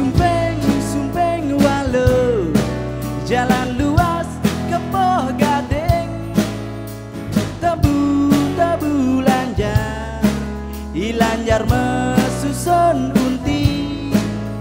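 Balinese fusion band playing: plucked strings and steady percussion under a melody line that slides between notes.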